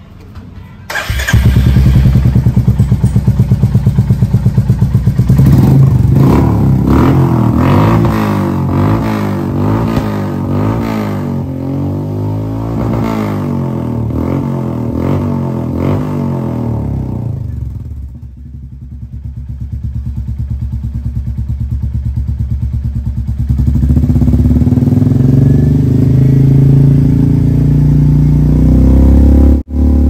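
Royal Enfield Meteor 350's single-cylinder engine, fitted with an aftermarket 'Reverse' silencer, starting about a second in and idling loudly. In the middle it is revved up and down repeatedly. It eases off around two-thirds of the way through, then comes back to a loud, steady run near the end.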